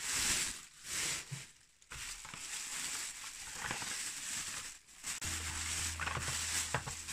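Thin plastic carrier bags crinkling and rustling as hands pull them open and unwrap them, in uneven handfuls with short pauses.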